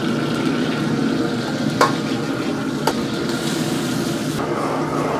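Stir-frying bean sprouts in a wok over a gas flame: a steady sizzle, with the metal ladle knocking sharply against the wok twice, about a second apart.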